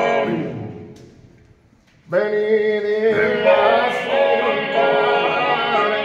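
Four male voices singing Sardinian cantu a tenore unaccompanied. A held chord fades out over about a second, and after a short pause the voices come back in together about two seconds in, holding a low chord under the lead voice's wavering melody.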